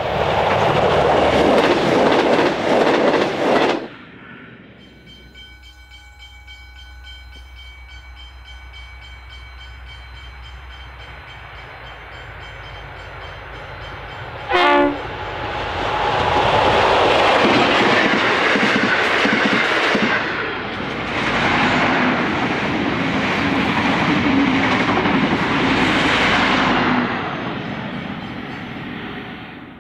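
Sprinter diesel railcars passing at speed, cut off abruptly about 4 seconds in. Then an N class diesel-electric locomotive hauling a passenger train approaches with a low steady hum that slowly grows, gives one short horn blast about 15 seconds in, and passes loudly with engine and wheel-on-rail noise that fades over the last few seconds.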